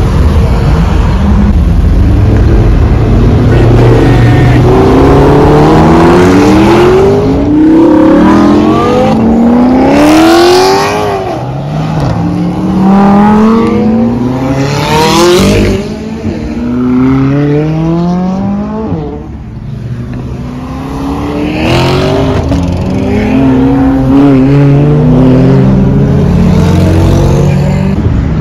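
Several cars accelerating hard as they leave a car meet. Their engines rise in pitch again and again as they shift up through the gears. Two cars rush loudly past about ten and fifteen seconds in.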